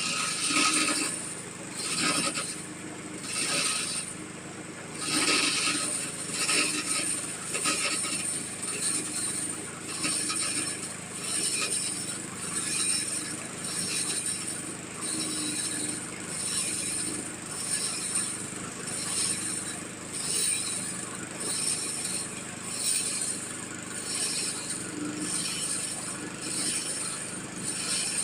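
Engine-driven water-well drilling machine running, with a steady engine hum and a regular mechanical rattle and clank about once a second.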